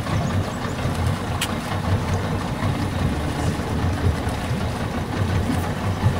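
A steady low hum of an idling motor, with faint splashing from two African finfoots fighting in the water and one sharp click about a second and a half in.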